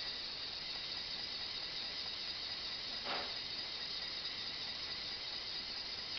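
Steady high-pitched hiss with a faint continuous tone, and one brief soft swish a little over three seconds in.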